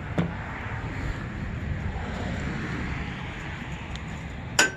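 Steady rushing noise, then near the end a sharp metal clang that rings on briefly: steel striking steel during the cutting of the trailer's steel tubing.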